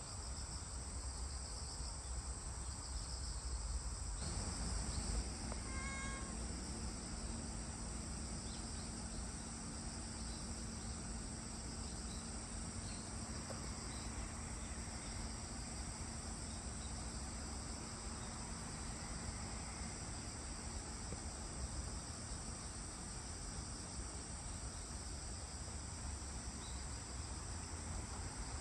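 Crickets chirring steadily, with a continuous scratching rustle of a Shiba Inu digging at her bedding with her paws, which gets louder about four seconds in.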